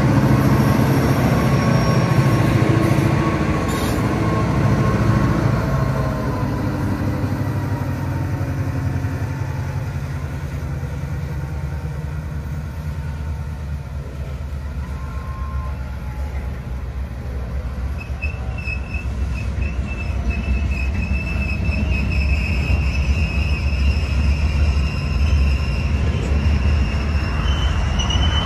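Train rolling along the rails with a steady low rumble, and a high-pitched wheel squeal setting in about two-thirds of the way through.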